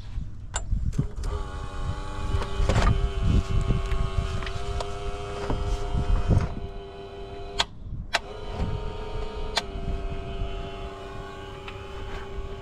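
Small electric air pump of a smoke-test machine running with a steady whining hum, pushing smoke into the engine's intake to find a vacuum leak. It cuts out with a couple of clicks about two-thirds of the way through, then starts up again.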